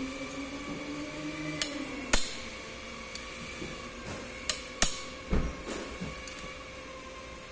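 About half a dozen sharp metal taps and clinks, irregularly spaced, as tools and parts are worked on a stripped Kia Rio engine block during teardown, over a faint steady hum.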